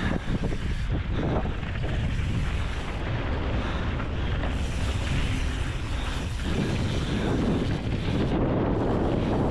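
Wind buffeting the microphone and mountain bike tyres rolling over a dirt trail on a fast descent, with a few knocks near the start; the rush grows louder about two-thirds of the way in.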